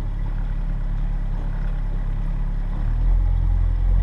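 Small motorboat's engine running with a steady low drone, which grows louder about three seconds in.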